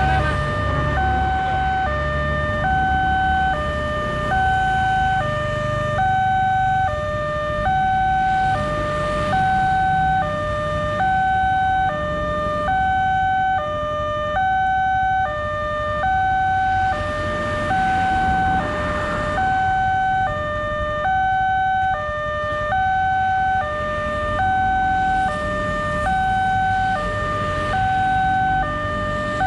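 Railway level-crossing warning alarm sounding: a two-tone signal alternating evenly between a higher and a lower pitch, repeating without a break. It signals that the barrier is closed and a train is about to pass.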